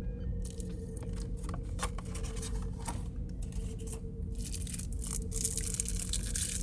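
Packaging being handled during unboxing: rustling and crinkling with scattered light clicks and taps. The rustling grows denser and louder near the end, over a steady low hum.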